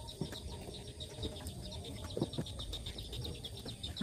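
Newly hatched chicks peeping, a rapid run of short high chirps, several a second, with a few soft knocks from hands and dishes.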